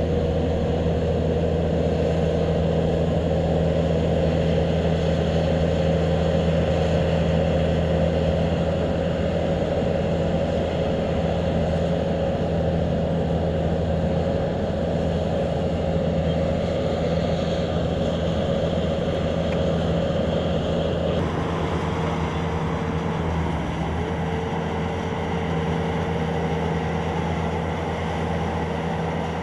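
Bobcat S250 skid-steer loader's diesel engine running steadily under load, a constant hum whose pitch shifts slightly lower about three-quarters of the way through.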